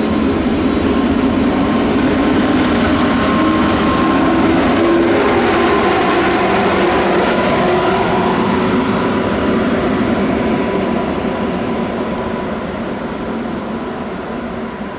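Train hauled by an ÖBB class 1144 electric locomotive running through the station: a loud steady rumble of wheels and running gear with a steady hum, loudest around the middle, then fading away over the last few seconds.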